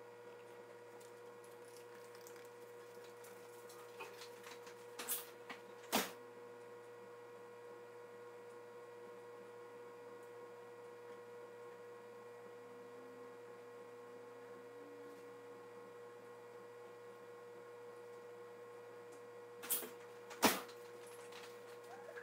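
Steady electrical hum with one strong, even tone and fainter tones above it, broken by a few sharp clicks: two about a quarter of the way in and two near the end, the last the loudest.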